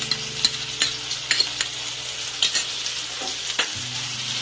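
Fried koi fish and spice paste sizzling in hot mustard oil in a kadai, with a spoon clicking and scraping against the pan about a dozen times as it is stirred.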